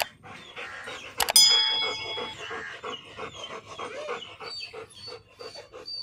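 German shepherd panting, with a sharp metallic clang about a second in that rings on for about a second.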